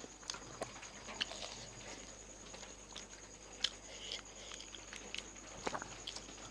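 Close-up eating sounds: fuchka (pani puri) shells crunching and being chewed wetly, heard as scattered short crackles and clicks with one sharper crack about three and a half seconds in.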